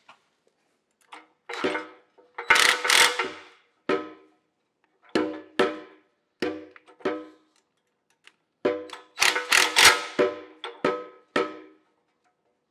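DeWalt cordless impact driver hammering in short trigger bursts as it runs down the nuts on a wire-rope cable clamp. There are about a dozen bursts, the longest a few seconds in and again around three-quarters of the way through.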